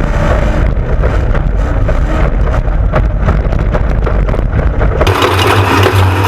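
Off-road race truck engine running under load over rough ground, with frequent knocks and jolts from the chassis and suspension. About five seconds in the sound changes abruptly to a steadier engine drone.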